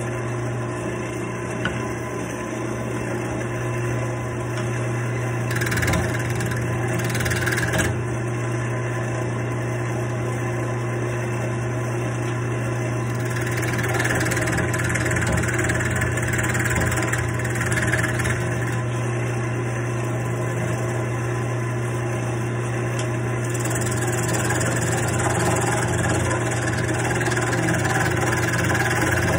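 Wood lathe running with a steady motor hum while a hand-held turning tool cuts a spinning wooden dowel. The scraping hiss of the cut comes and goes in several passes.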